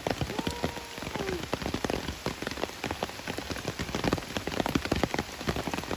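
Steady rain falling on leaves and leaf litter: a dense, irregular scatter of separate drops striking.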